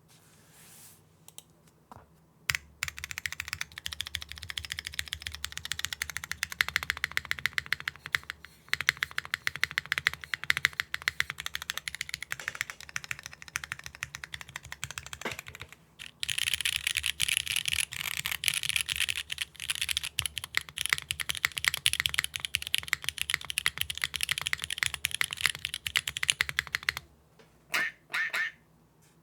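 Mechanical keyboard sound test on a Neo65 Core Plus with lubed MX2A Black linear switches on an aluminum plate, no foam, and GMK keycaps. After a few scattered keystrokes, fast continuous typing runs in three long stretches separated by brief pauses, and it tails off to a handful of keystrokes near the end.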